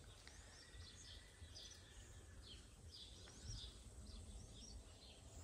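Near silence: faint outdoor ambience with scattered short, high bird chirps.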